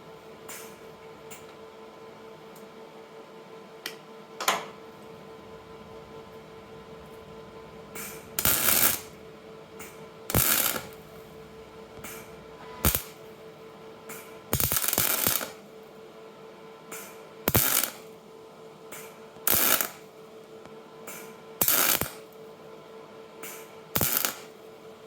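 Short bursts of weld being laid on to build up worn metal, about eight, each a second or less and roughly two seconds apart, over a steady hum.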